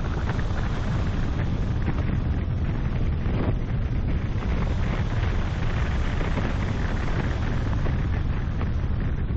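Steady wind and road noise from a car driving on an asphalt road: a continuous low rumble and hiss with no clear engine note.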